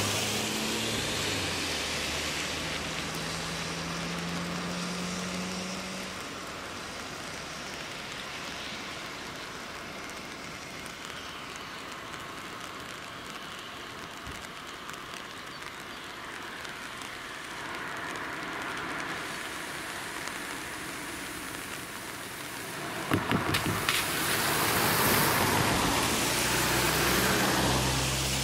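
Car traffic on a wet road: a steady hiss of tyres on wet asphalt and rain, with a car engine fading out over the first few seconds. About 23 seconds in there is a quick run of four or five knocks, then the hiss swells as another car passes, and engine hum returns near the end.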